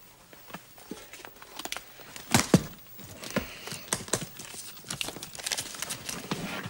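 Irregular knocks, clunks and rustling of objects being handled and packed into a case, the loudest knock about two and a half seconds in.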